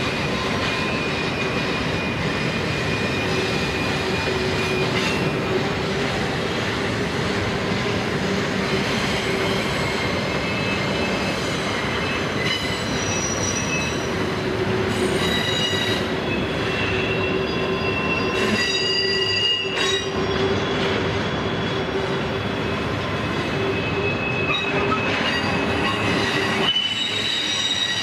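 Slow-moving freight trains rolling over steel bridges: a steady rumble of wheels on rail, with high squealing tones from the steel wheels coming and going throughout.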